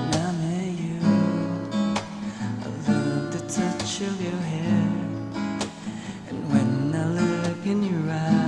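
Acoustic guitar strummed and picked, with a man singing the melody along with it.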